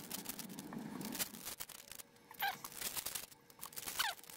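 Foil wrapper of a trading card pack being torn open and crinkled, with many small clicks of handling and a couple of brief squeaks.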